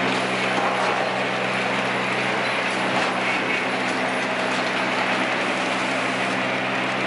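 Sawmill machinery running steadily: a motor's even hum under a loud, constant rushing noise.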